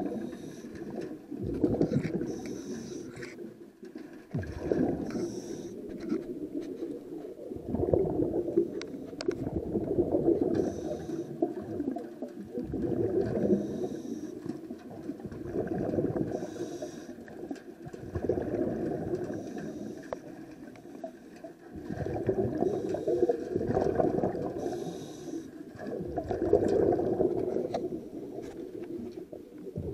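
Scuba regulator breathing heard underwater: a short hiss on each inhale, then a rumbling gurgle of exhaled bubbles, repeating in a regular cycle every few seconds.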